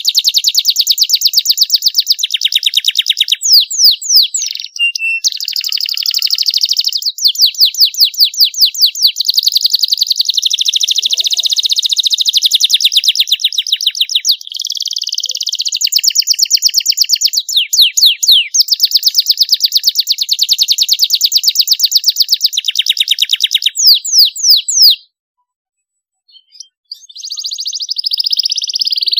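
Domestic canary singing a long, fast song of rolling trills and rapid chirps, with quick sweeping notes in places. It breaks off for about two seconds near the end, then starts again.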